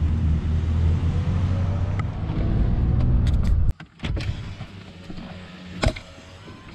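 Pickup truck engine running while pulling away, its pitch rising slightly. About two-thirds of the way in the engine sound drops off abruptly to a quiet cab, with a few sharp clicks.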